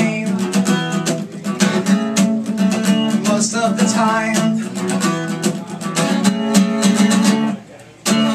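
Acoustic guitar strummed in a quick, driving rhythm, the chords ringing between strokes. Near the end the strumming stops for a moment, then starts again.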